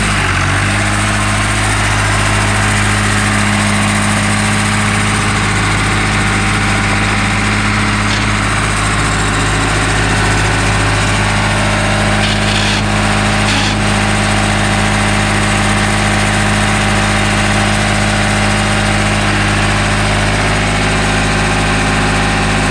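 Hesston 55-56 tractor's diesel engine idling steadily.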